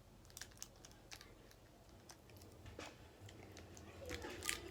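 Faint, scattered clicks and crinkles of a small toy package being handled and opened.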